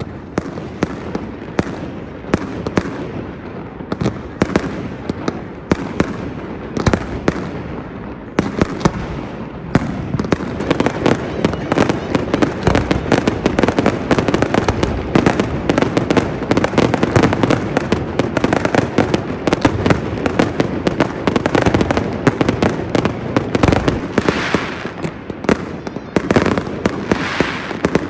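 Aerial fireworks display: repeated bangs and crackling bursts. About ten seconds in it thickens into a dense, near-continuous barrage of crackles and bangs.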